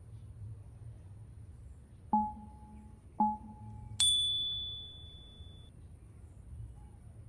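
Three chime tones: two short, lower dings about a second apart, then a higher ding that rings on for over a second.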